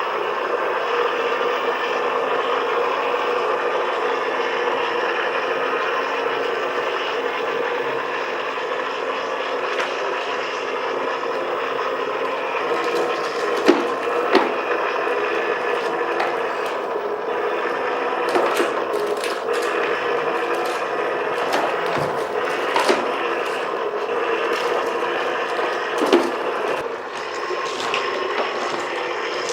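TWOLF TW-715 Jeep RC crawler driving and drifting on a wooden tabletop: a steady engine-like drone from its onboard sound module over the drivetrain. About six sharp knocks against the table come in the second half.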